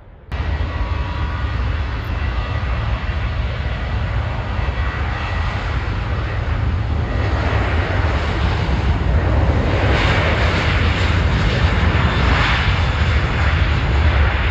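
Jet engines of an American Airlines Boeing 737 on the runway, a loud steady roar with a deep rumble that cuts in abruptly and grows louder through the second half.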